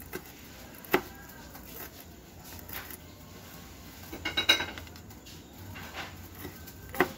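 Kitchen knife cutting garlic cloves on a wooden chopping board: a few separate, slow knocks of the blade on the board. The loudest comes about a second in, a quick cluster with a slight metallic ring comes in the middle, and one more comes near the end.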